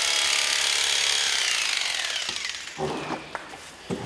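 High-pitched whine of an electric motor, like a power tool, falling in pitch and fading as it winds down over the first two and a half seconds. A few short knocks and brief low sounds follow near the end.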